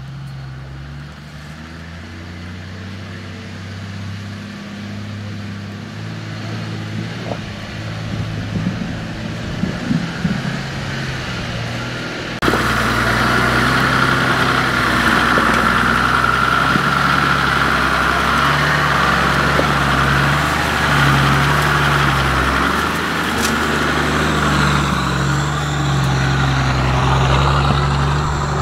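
Toyota Land Cruiser HDJ80's turbodiesel engine running with a steady low note as the truck crawls slowly over rough ground. About twelve seconds in it becomes suddenly louder and closer, with a steady hiss over the engine.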